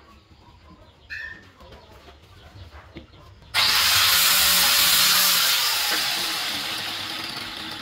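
A loud, even hiss starts suddenly about three and a half seconds in and slowly fades away. Before it there are only faint ticks and knocks.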